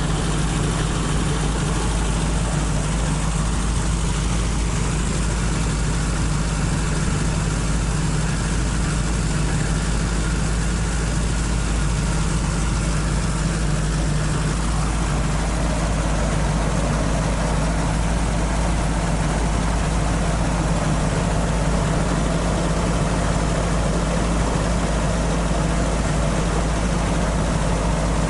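Toyota AE86 Sprinter Trueno's 4A-GE twin-cam four-cylinder engine idling steadily.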